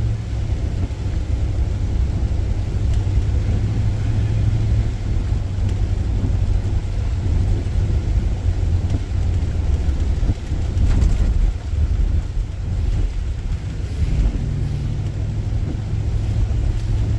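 Steady low road and engine rumble inside a moving car's cabin, with tyre noise on a wet highway. A brief sharper sound cuts through about eleven seconds in.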